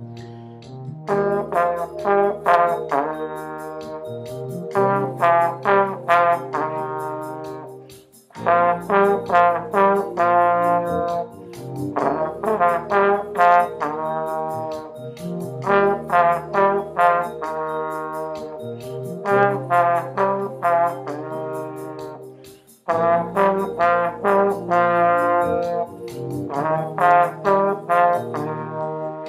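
Plastic trombone playing a slow beginner-band melody at 66 beats a minute, in phrases of short tongued notes separated by brief pauses, over a recorded accompaniment track with sustained low notes.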